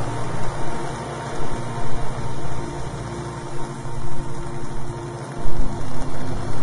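Steady rushing background noise over a low drone, swelling and dipping irregularly in loudness.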